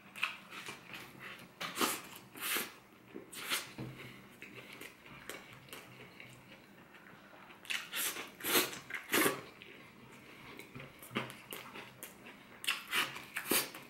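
Close-up eating sounds: a man chewing a mouthful of fried popcorn chicken wrap, with irregular wet mouth clicks and smacks, and fingers picking breaded crumbs off a wooden cutting board.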